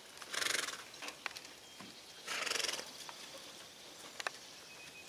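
Haflinger pony blowing out hard through its nostrils twice, two short fluttering snorts about two seconds apart, with a few faint clicks between them.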